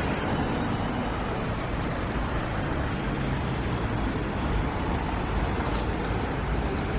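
Steady city road traffic noise: the constant hiss and rumble of cars and buses running on the road.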